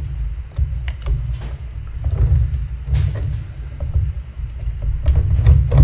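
Scattered light clicks and taps of hands working the throttle linkage and carburetor of a Stihl MS250 chainsaw loose, over a steady low rumble.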